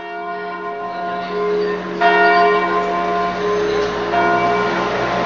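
Church bells ringing in a stone bell tower: bells of several pitches struck in turn, a fresh stroke every second or two, their tones ringing on over one another.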